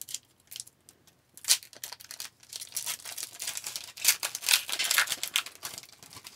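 Foil wrapper of a hockey card pack being torn open and crinkled by hand. A sharp rip comes about one and a half seconds in, and the crinkling is densest and loudest around four to five seconds in.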